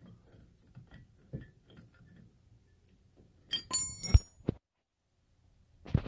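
Steel parts of a disc brake caliper compression tool kit clinking together with a short bright ring and a knock, about three and a half seconds in, after faint handling rustle.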